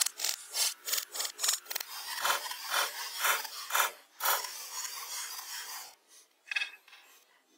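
Hand saw cutting through a log, quick back-and-forth strokes about four a second, then slower, heavier strokes about two a second with a continuous rasp. The sawing stops about six seconds in, followed by a brief faint scrape.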